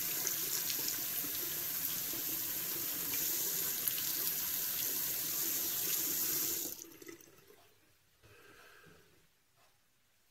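Bathroom sink tap running steadily, then turned off about seven seconds in; a few faint small sounds follow.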